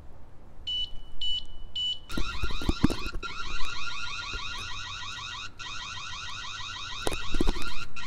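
The Reolink Argus PT security camera's built-in siren alarm being tested. Three short high beeps, then a loud warbling siren of fast repeated sweeps that cuts off at the very end.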